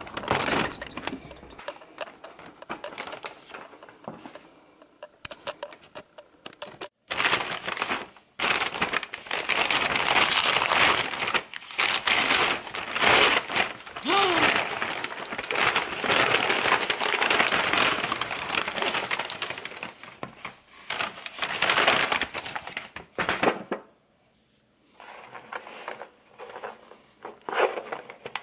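Brown paper takeout bag crinkling and rustling loudly as hands open it and rummage inside. The noise is fainter at first and breaks off briefly near the end.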